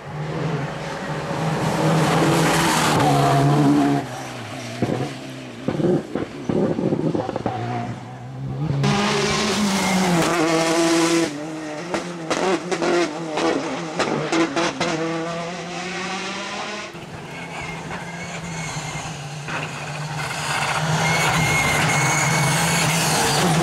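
Rally cars at full attack on a wet tarmac stage, passing one after another. The engines rev hard through the gears, with strings of sharp pops as the throttle comes off and on, and spray hisses off the tyres. Near the end a Škoda Fabia R5's turbocharged four-cylinder rises as it approaches.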